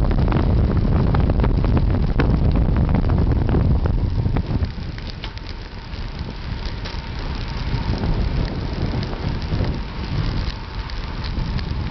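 Wind rushing over the microphone of a camera on a moving road bike, with scattered small clicks and rattles. The wind noise is loud at first and drops off about four and a half seconds in.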